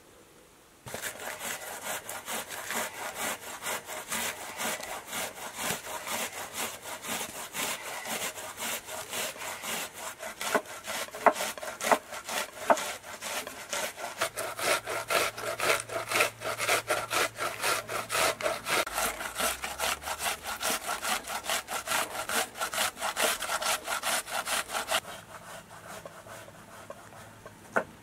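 Quick, even rasping strokes of a vegetable being grated on a metal hand grater, with sharper knife knocks on a wooden cutting board mixed in. It starts about a second in and stops about three seconds before the end.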